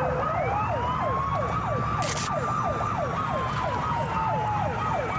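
Police car sirens during a pursuit: a fast yelp, about four falling sweeps a second, sounding together with a slow wail that rises and then sinks gradually. Engine and road rumble lie beneath.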